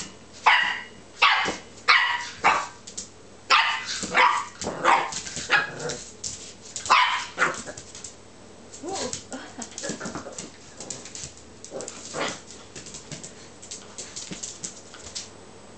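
Brittany puppy play-barking at potatoes on the floor: a run of short, sharp puppy barks, about a dozen in the first seven seconds, then quieter and sparser yips.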